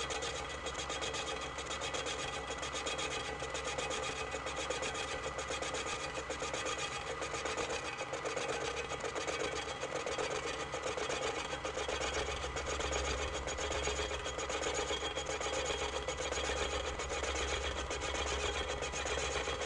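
Milling machine fly cutter facing the cast-iron base of a 1940s Craftsman drill press, played back at eight times speed, so the cutting sounds as a fast, even, steady chatter.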